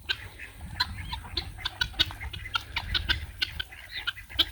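Chickens clucking in short calls, amid many quick sharp clicks and taps from feeding.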